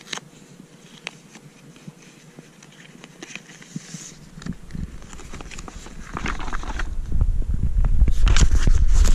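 Hands opening and handling the packaging: scattered small clicks and scrapes, then from about halfway a growing low rumble of handling noise on the microphone with bursts of crinkling.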